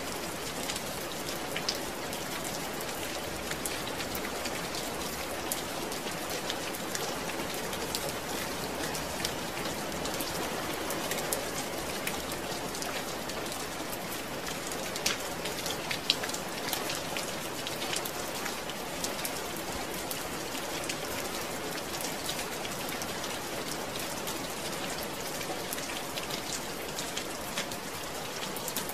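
Steady rain falling, a continuous hiss of rain on a surface with many small drop patters throughout.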